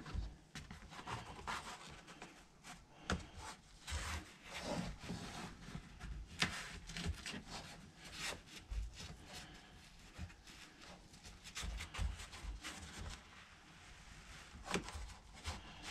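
Quiet, irregular rubbing and scraping with light taps as material is handled and worked by hand, likely a cut piece of EVA foam flooring or carpet being trimmed and fitted.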